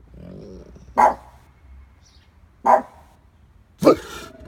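Dogue de Bordeaux barking: three single deep barks, spaced a second or more apart.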